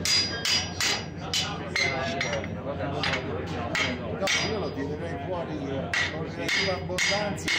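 Blacksmiths' hammers striking a hot iron bar on an anvil, about two to three blows a second in an uneven rhythm, some blows leaving a thin metallic ring.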